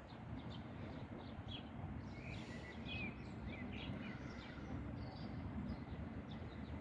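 Small birds chirping in short, repeated calls over a steady low outdoor rumble.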